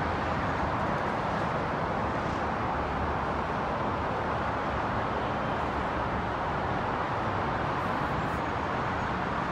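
Steady traffic noise from a multi-lane highway below: a continuous rush of tyres and engines from many passing cars and buses, with no single vehicle standing out.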